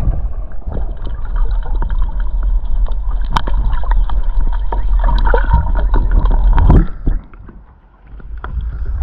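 Water rushing and splashing around a kayak, under a heavy low rumble, with scattered knocks. The sound drops away for about a second near the end, then returns.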